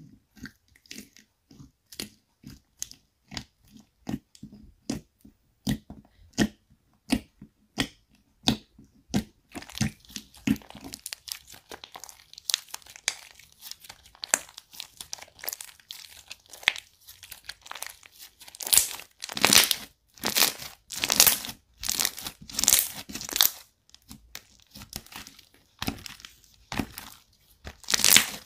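Thick slime being pressed, stretched and folded by hand, making sticky clicks and pops. The clicks come separately, about one or two a second, then turn into a denser crackle, and the loudest pops come a little past the middle.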